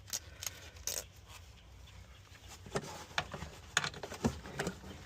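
A wrench working a battery terminal clamp nut loose in a cramped space: irregular metal clicks and short scrapes, a few a second at most.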